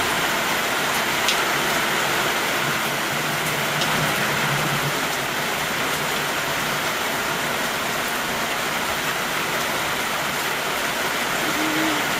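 Heavy rain falling steadily, a constant hiss with an occasional single drop tick standing out.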